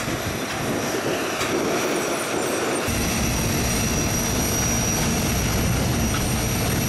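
Steady airliner cockpit noise: an even air hiss with a thin high whine. A low rumble joins about three seconds in and then holds steady.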